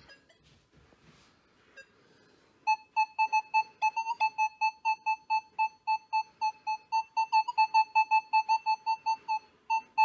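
Nokta Makro Legend metal detector sounding a rapid string of short beeps at one steady mid pitch, about five a second, starting about three seconds in. It is the Field-mode full-tones response to a silver Mercury dime passed over the coil, which reads target ID 46.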